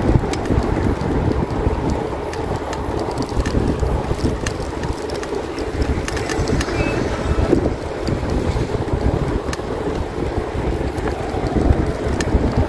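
Wind rushing over the microphone of a camera on a moving bicycle: a steady low rumbling noise, with a few faint clicks.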